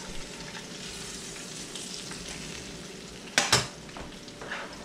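Breaded fish frying in hot oil in a skillet, a steady sizzle, with two sharp clacks about three and a half seconds in.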